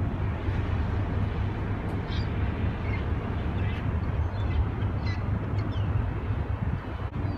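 Low, steady rumble of a passing container ship's engine, with faint bird chirps several times.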